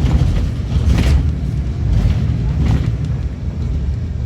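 Low, steady rumble of a city transit bus in motion, heard from inside the cabin. A few short knocks or rattles come through, the sharpest about a second in.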